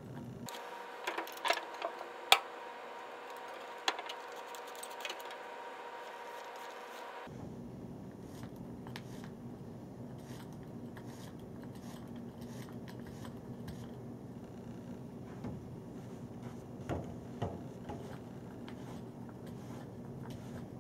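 Handling noise of billiard cloth being smoothed by hand and worked with a small roller. A few sharp clicks and knocks about one to two seconds in, then faint rubbing over a steady low hum.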